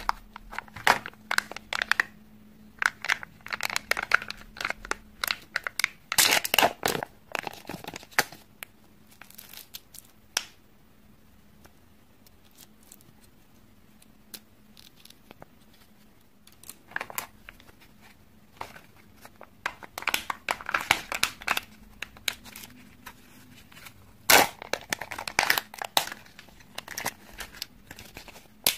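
Kinder Joy egg packaging handled close up: the thin printed seal peeled and torn from the plastic cup and the wrapper crinkled, in bursts of crackling and tearing with a quieter stretch in the middle.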